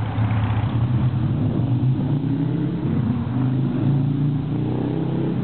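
Toyota FJ Cruiser's 4.0-litre V6 engine running at low speed, its pitch wavering slightly.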